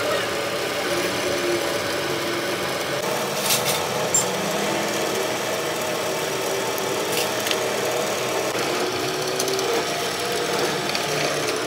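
A workshop machine running steadily, with a few light clicks along the way.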